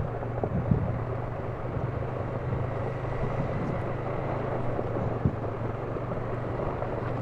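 ATV engine running steadily with a constant low hum, a few faint knocks over the noise of the ride.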